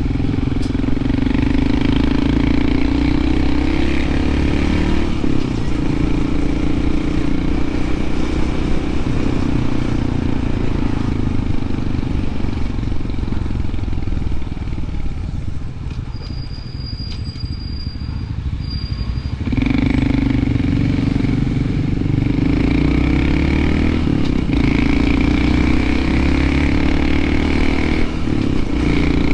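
Honda CT125 Hunter Cub's single-cylinder engine running while riding, with wind rumble on the microphone. The engine note eases off about halfway through, then comes back sharply under throttle near two-thirds of the way in.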